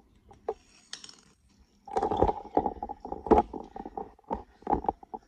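A short zip from the ripcord launch about a second in. Then a metal Beyblade-style spinning top spins on a tile floor: a steady hum with many quick clicks and knocks as it skitters.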